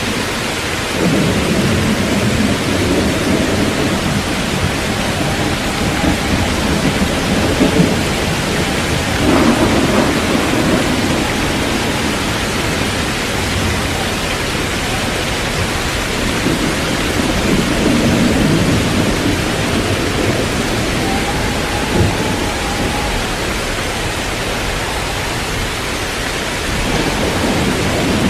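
Heavy rain pouring down steadily, with thunder rolling in several times. There is a sharper thunderclap about nine seconds in and another short crack around twenty-two seconds.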